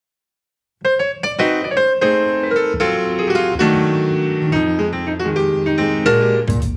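Piano introduction to a song, starting about a second in after silence, with a series of struck chords and runs. A sharper percussive hit sounds just before the end.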